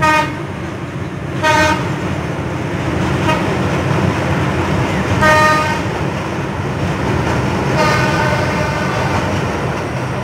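A passenger train running across a steel truss bridge with a steady low rumble, its horn giving four short toots: two near the start about a second and a half apart, one about five seconds in, and a weaker, longer one around eight seconds in.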